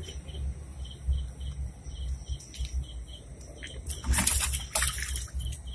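Live fish and water splashing as a bucket of fish is tipped into a barrel, loudest for about a second near the end, over a regular chirping of crickets.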